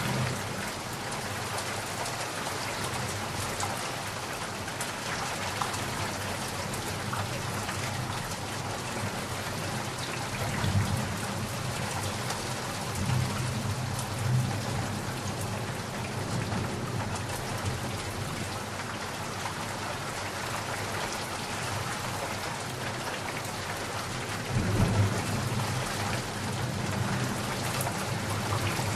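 Steady rain falling, with low rolls of thunder rumbling in three times: about a third of the way in, just after, and again near the end.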